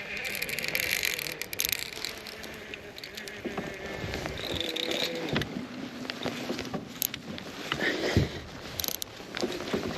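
Fishing reel being cranked and its drag clicking while fighting a large longnose gar, with many sharp clicks and a whining tone from the reel about four seconds in.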